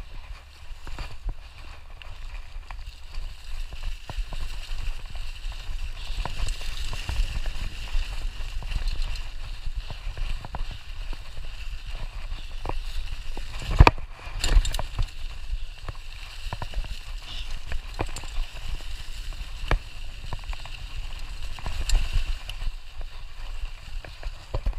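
Mountain bike ridden fast over a trail covered in dry fallen leaves: tyres crackling and rustling through the leaves over a low rumble, with scattered knocks and rattles from the bike over bumps. The sharpest knock comes about halfway through.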